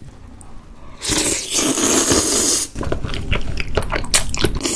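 Close-miked noodle slurping: a mouthful of flat pasta noodles in meat sauce sucked in with a long loud slurp about a second in, then wet smacking and clicks, and a second slurp starting near the end.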